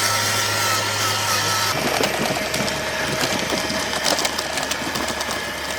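Electric motor and gearbox of an RC scale crawler truck whining steadily, its pitch dropping to a lower, slower whine a little under two seconds in.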